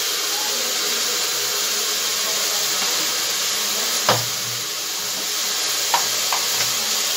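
Potato and brinjal pieces frying in hot oil in a pressure cooker, a steady sizzle. A few short knocks of the metal ladle against the pot, about four seconds in and twice around six seconds.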